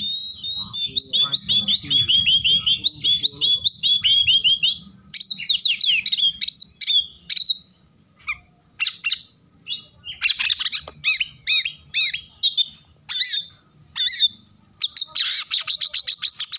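Caged oriental magpie-robin singing a varied song: a fast, dense run of high chirps and whistled sweeps, then spaced single notes, then another rapid burst of chirps near the end.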